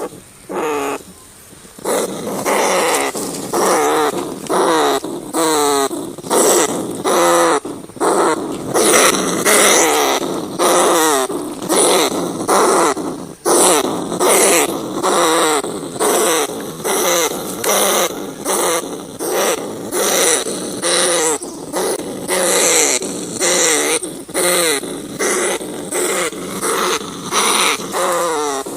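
Rats crying: a steady series of short, squealing cries, each sliding down in pitch, about one or two a second.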